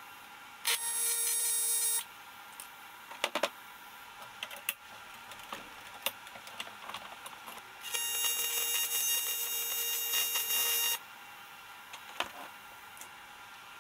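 AC TIG welding arc buzzing on aluminium in two bursts that start and stop abruptly, one short of about a second and one of about three seconds. Small clicks and taps from handling the workpiece come between them.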